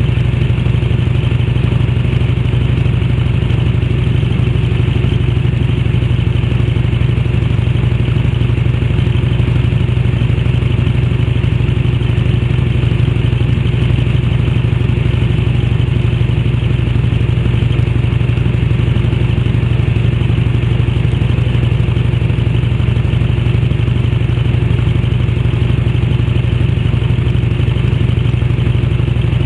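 1991 Harley-Davidson Electra Glide's V-twin engine running steadily at cruising speed, exhausting through an aftermarket fish-tail silencer.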